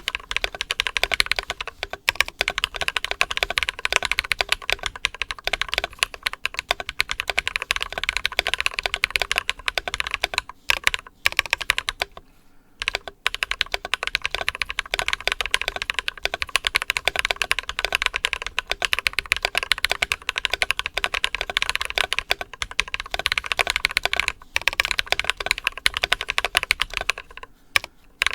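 Typing on an ID80 mechanical keyboard with lubed Glorious Panda tactile switches and PBT Cherry-profile keycaps: a steady, fast run of keystrokes, with a short pause about twelve seconds in.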